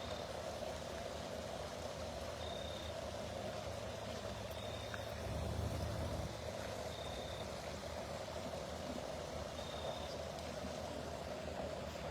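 Outdoor night ambience: a steady rushing noise with a short, high chirp repeating every two to three seconds, and a low rumble that swells briefly about halfway through.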